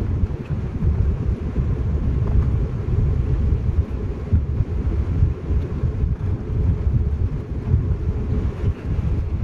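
Cabin noise of an Embraer E190-E2 airliner taxiing: a continuous low rumble from its idling Pratt & Whitney geared turbofans and the rolling aircraft, heard from inside the cabin.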